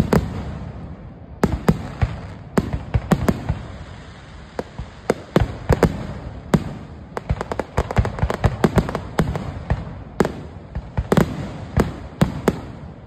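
Aerial firework shells bursting in a rapid, overlapping barrage of sharp bangs, packed thickest about halfway through: a fireworks finale.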